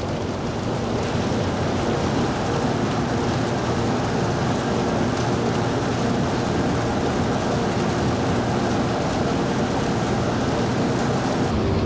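Feather-and-down sorting machine running, its fans blowing air through the sorting chambers: a steady rushing noise over a low, even motor hum.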